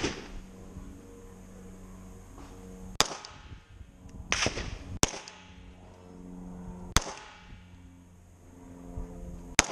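Pistol shots fired one at a time during a timed defensive-pistol stage: about five sharp cracks, one every second or two, each ringing out briefly.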